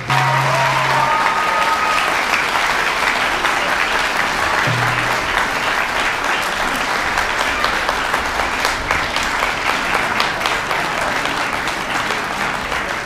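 Audience applauding, dense and steady, easing off a little near the end.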